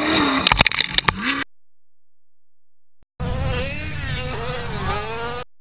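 Off-road race truck engines: a loud engine with sharp clattering knocks and a falling then rising pitch cuts off abruptly, then after a gap of silence a high-revving engine buzzes with its pitch wavering up and down before it stops short.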